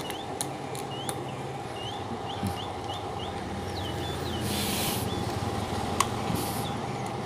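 Screwdriver driving screws into a stand fan's plastic motor cover, with a few light clicks and a brief hiss about halfway through. A bird chirps a quick run of short rising notes in the background over a steady hum.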